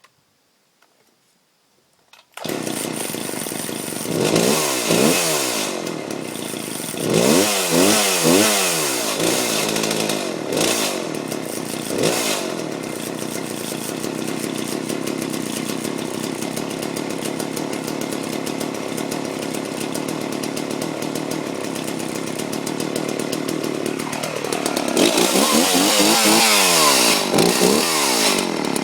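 Homelite 360 two-stroke chainsaw engine catching about two seconds in and running. It is revved up and down several times, settles to a steady run through the middle, and is revved again near the end.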